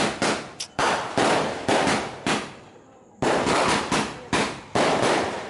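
Fireworks going off: a rapid string of about a dozen sharp bangs, each trailing off in a short echo, with a pause of about a second midway before the bangs start again.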